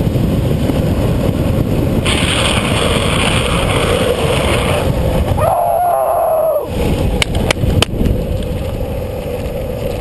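Wind buffeting the microphone of a camera riding along on a downhill speed skateboard, over the steady rumble of the wheels rolling fast on asphalt. About halfway through, the rumble drops out for about a second under a brief wavering tone, then three sharp clicks follow.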